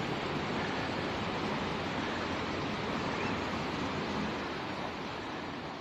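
Steady rushing of fast-flowing brown floodwater, easing slightly about four seconds in.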